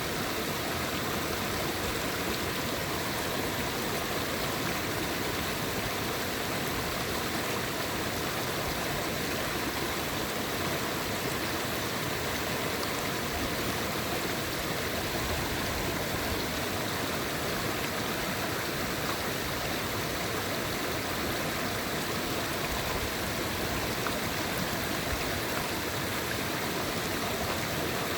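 Mountain river stream flowing, a steady rushing of running water with fine gurgling.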